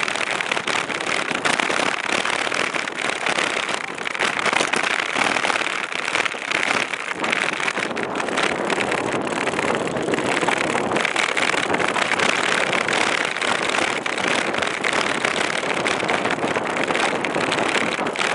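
Wind and road noise on the microphone of a camera riding on a moving bicycle: a steady loud rush with constant small crackles and buffets.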